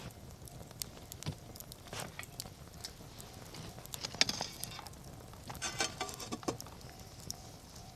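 Wood campfire crackling, with scattered sharp pops and a louder burst of snapping about four seconds in and again around six seconds.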